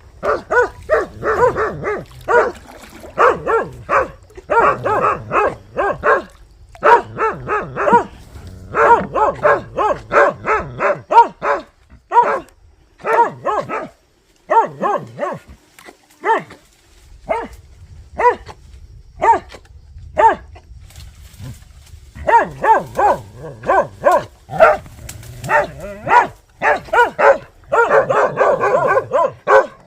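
Dogs barking at a wild boar they have brought to bay: rapid runs of sharp barks with brief pauses, growing dense and overlapping near the end.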